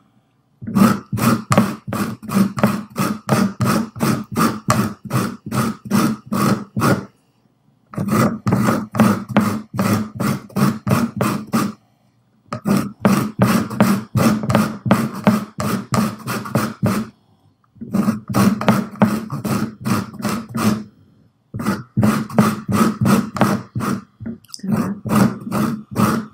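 A lemon being zested on a small handheld fine grater resting on a glass bowl: rhythmic scraping strokes, about three a second, in runs of several seconds broken by short pauses.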